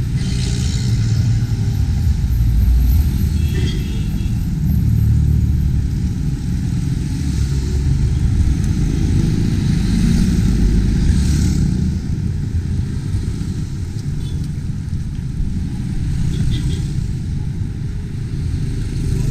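Steady low rumble of a motor vehicle on the road, with brief rushes of wind or passing-traffic noise.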